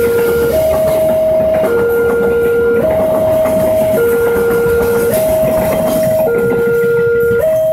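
Railway level-crossing warning alarm sounding its two-tone signal, a low and a high tone taking turns about once a second. Under it, a passenger train rushes past over the crossing, its last carriage clearing about five seconds in.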